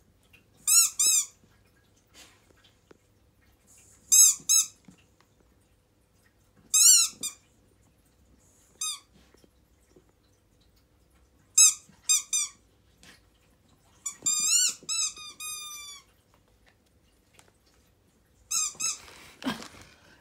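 A squeaky toy pig squealing in short, high, plaintive cries each time a Siberian husky bites down on it: about a dozen squeals in ones, twos and threes, with a longer run of falling squeals about two thirds of the way through.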